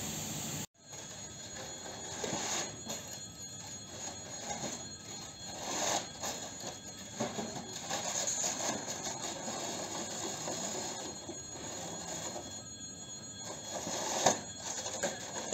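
Outdoor railway-platform ambience with repeated irregular scraping strokes, typical of a snow shovel or broom clearing a platform. Under it runs a steady ringing like an electric warning bell.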